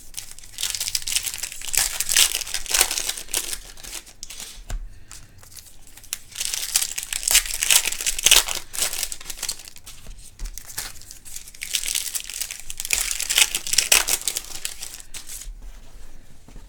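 Wrapper of a sealed trading-card pack crinkling and tearing as it is worked open by hand, in three long bouts with short pauses between. The pack is hard to get into.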